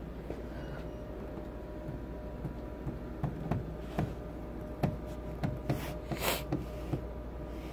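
A steady low hum with a faint whine, broken by irregular clicks and knocks and a brief hiss about six seconds in.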